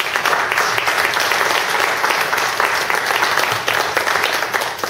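Audience applauding, many hands clapping at once, dying away right at the end.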